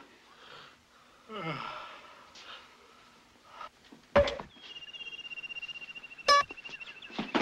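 Slapstick sound effects: a loud mallet blow to the head about four seconds in, followed by a high, steady warbling tone lasting about three seconds. A second sharp, ringing strike cuts through it about six seconds in.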